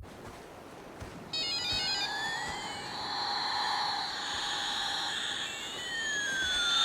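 Battery-powered toy space shuttle going off with its electronic sound effect. A hiss is followed, a little over a second in, by a quick stepped run of beeps, then synthetic tones that glide up and down past each other.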